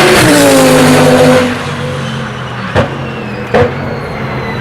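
GT race car engine at speed, its note falling in pitch as it passes and fading about a second and a half in. Then come two sharp pops a little under a second apart over the quieter sound of cars further off.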